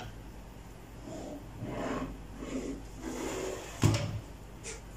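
Handling of a metal desktop computer case and its power supply: rubbing and scraping, then one sharp knock a little before four seconds in and a fainter click near the end.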